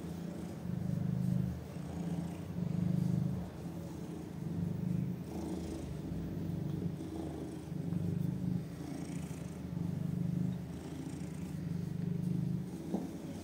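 A domestic cat purring steadily while being stroked, the low purr swelling and easing with each breath, about every one and a half to two seconds.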